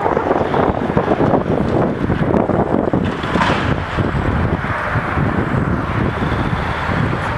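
Wind buffeting the microphone: a steady, gusty rushing noise with no clear machine sound standing out.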